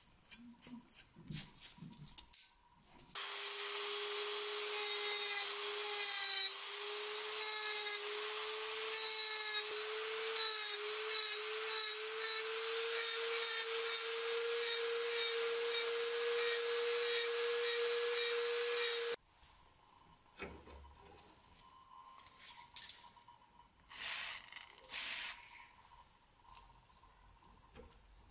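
Handheld rotary tool with a small bit running at high speed against the rusty steel of the scissors' pivot, a steady whine with a hiss over it, its pitch creeping slightly higher. It starts about three seconds in and stops abruptly after about sixteen seconds, with a few light clicks before and after.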